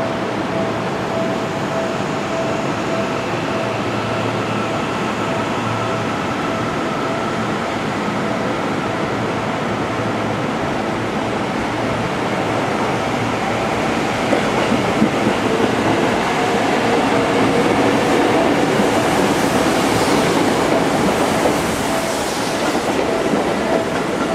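Seibu 10000 series electric train running along the rails as it pulls in to arrive, with a steady rumble and a thin steady tone over it. It grows louder about fifteen seconds in, with a higher hiss and squeal near the end.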